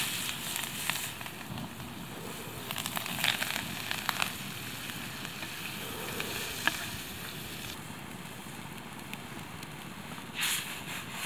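Food sizzling in a long-handled black frying pan held over an open campfire, with the wood fire crackling beneath it in scattered sharp pops. A brief louder hiss comes near the end.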